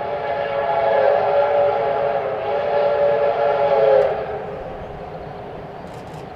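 A locomotive whistle sounding one long, loud chime blast of several tones at once, which stops with a slight downward slide about four seconds in. The steady rumble of the passing train carries on beneath it and after it.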